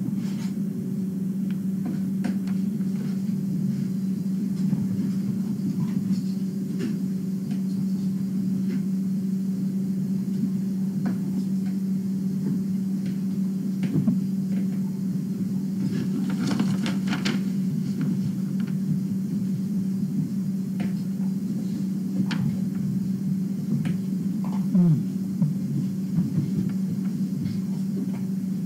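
A steady low hum from a machine in the room, with scattered small clicks and paper rustles.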